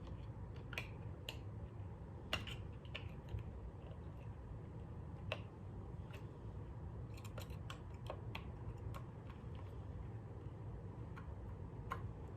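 Scattered small clicks and taps of a screwdriver and metal parts on a bass guitar, as corroded pickup screws are worked loose, over a low steady hum.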